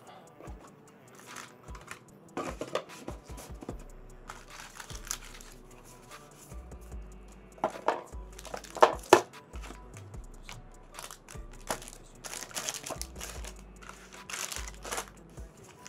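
Plastic packaging crinkling and rustling as the contents of a Pokémon trading-card Elite Trainer Box are handled: cellophane-wrapped card sleeves, a plastic bag of dice and foil booster packs. A few sharper, louder crackles come about eight to nine seconds in.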